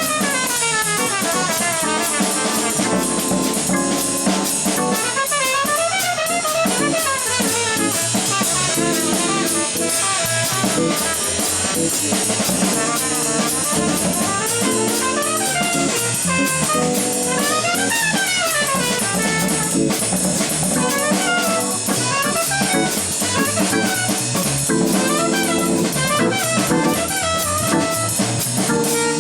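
Live small-group jazz: a horn solos in quick rising and falling runs over organ chords and a drum kit keeping time on the cymbals.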